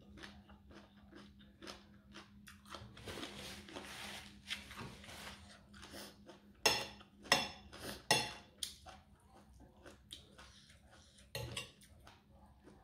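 Mouth sounds of eating rice noodles, slurping and chewing, then several sharp clinks of a metal fork and spoon against a ceramic plate from about halfway through.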